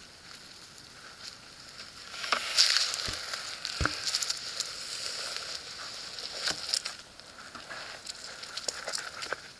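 Rattlesnake shaking its tail rattle as a warning: a dry, sizzling buzz that swells about two seconds in and eases off later, with two soft knocks around three and four seconds in.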